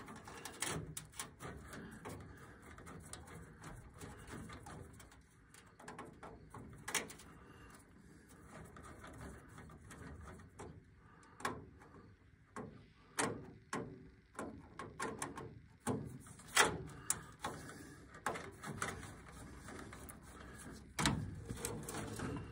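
Scattered light clicks and taps as wires are handled and a screwdriver works the screws on a furnace control board's low-voltage thermostat terminal strip.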